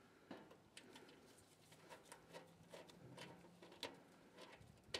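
Near silence, with a few faint scattered ticks and taps.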